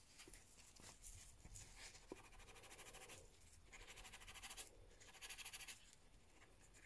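Near silence: faint room tone with a few soft, hissy rustles about a second long each.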